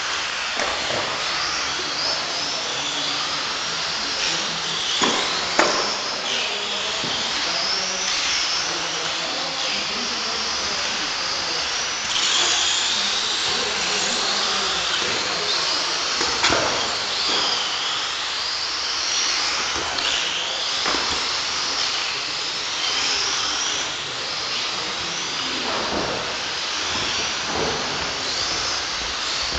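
Several Tamiya TT-01 electric radio-controlled touring cars racing, their motors and gears whining and rising and falling in pitch as they speed up and brake, with a few sharp knocks along the way.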